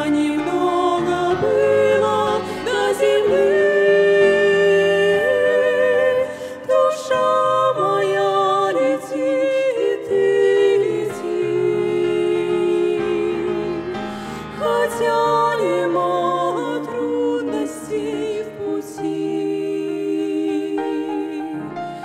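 Two women singing a slow Russian Christian song as a duet with musical accompaniment, holding long notes with vibrato.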